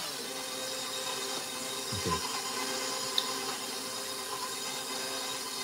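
Electric stand mixer running steadily, its flat beater churning thick chocolate buttercream frosting in a stainless steel bowl.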